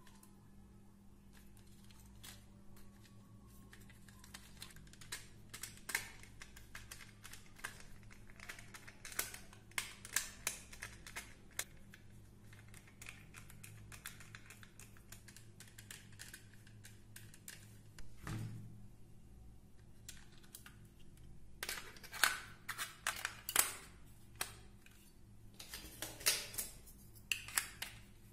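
Irregular clicks and taps of hard plastic parts being handled, snapped and screwed together as a toy rifle's housing and battery compartment are reassembled, over a faint steady hum.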